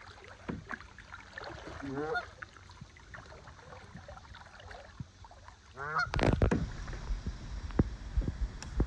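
Canada geese honking: a few calls about two seconds in and another short run just before six seconds. After that a louder low rushing noise takes over.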